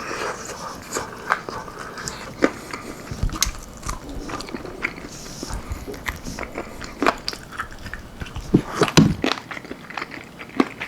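Close-miked biting and chewing of baked chicken wings with a crisp almond-flour breading: irregular sharp crunches and crackles, loudest in a cluster near the end.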